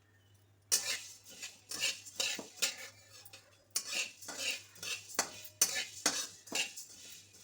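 Spatula scraping and stirring in a pan as spices and lentils roast for sambar powder, in short repeated strokes about two a second, with a short pause about three seconds in.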